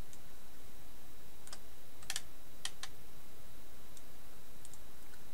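Scattered clicking at a computer: about eight short clicks at irregular intervals, a pair close together near the middle, over a steady background hiss.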